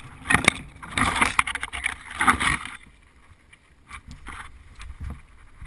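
Pine and birch branches brushing and scraping as a person pushes through them, in three loud rustling bursts with a few sharp cracks over the first three seconds, then a few lighter rustles.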